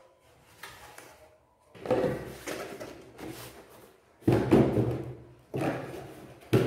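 Cardboard shoeboxes being handled and set down on a table: a few sudden thumps with scraping and rustling between them, the sharpest in the second half.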